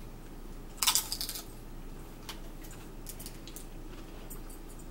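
Potato chip being crunched: a burst of crisp crackles about a second in, then scattered smaller crackles and clicks.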